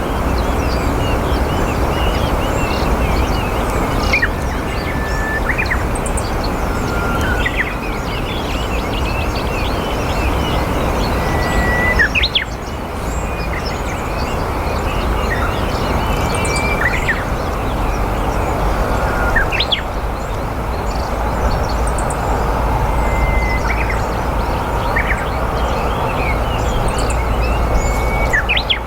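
Meadow bunting singing: short, quick phrases of high, varied notes, repeated every few seconds over a steady background rush of noise.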